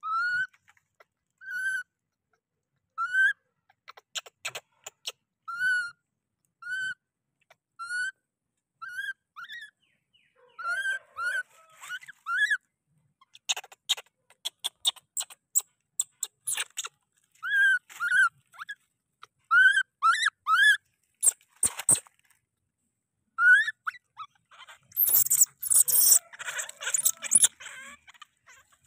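A baby monkey crying out over and over in short, high-pitched, arched calls, about one a second at first, then faster and in little clusters from about ten seconds in. Sharp clicks fall between the calls, and there is a burst of rustling noise near the end.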